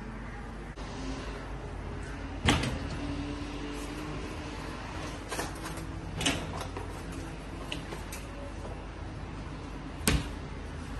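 Kitchen cupboard doors being opened and shut: a few sharp knocks over a low steady hum. The loudest knock comes about two and a half seconds in, and another comes near the end.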